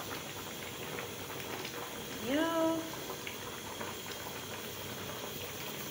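Pot of yam pepper soup boiling steadily, with faint ticks through the bubbling. About two seconds in, a person gives one short rising hum.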